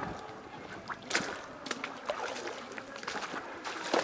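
Footsteps splashing and sloshing through shallow swamp water in uneven steps.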